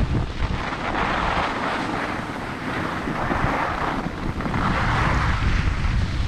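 Wind rumbling on the microphone, with several swells of hissing scrape as the filmer slides slowly over packed snow.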